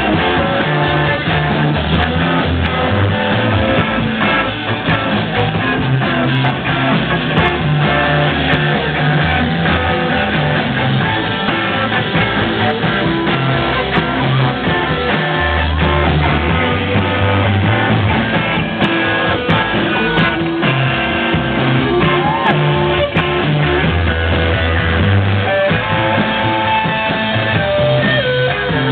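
Live rock band playing a song, with electric guitars over a moving bass line.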